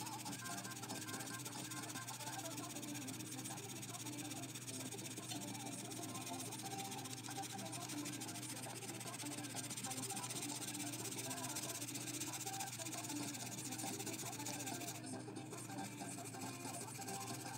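A coloured pencil shades across paper in a steady scratchy hiss, with a short break about fifteen seconds in when the pencil is lifted. Soft background music plays underneath.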